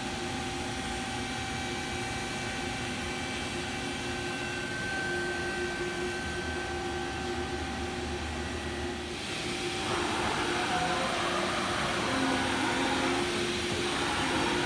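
Steady hum of a powered-up CNC vertical machining center standing idle, with several held tones over a noisy background. About ten seconds in, a louder hiss joins and the sound grows a little louder.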